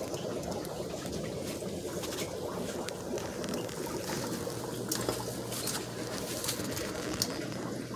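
Aquarium water bubbling and trickling from filters and aeration, over a low steady hum, with a few faint clicks.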